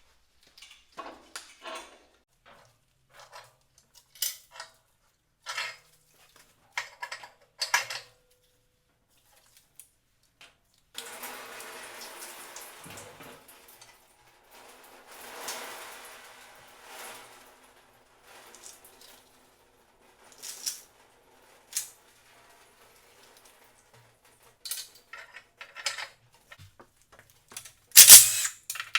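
Metal tools and engine parts clinking and clanking. Then, for several seconds, liquid runs out of the BMW S52 engine into a drain pan as the leftover oil and coolant drain. A loud sharp clatter comes near the end.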